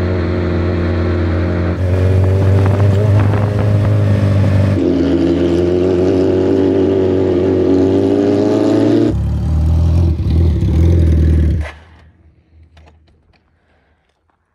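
Motorcycle engine running under way, its note climbing gently for a few seconds in the middle. The sound changes abruptly several times and stops about twelve seconds in, leaving only a few faint clicks.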